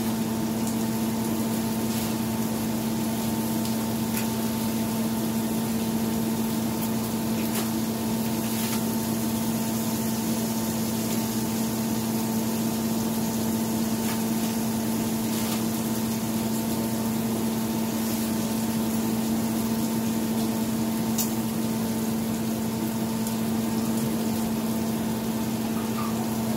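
Steady hum of a running kitchen appliance motor, one strong low tone with fainter higher tones above it, and a few faint clicks scattered through.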